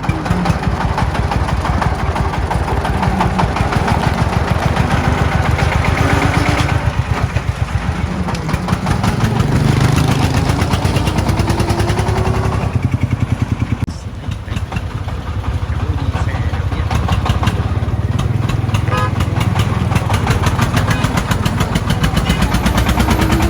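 Diesel engine running close by with a rapid, even chugging of firing pulses. It revs up, with a rising pitch, from about eight to thirteen seconds in, then drops back briefly and runs on.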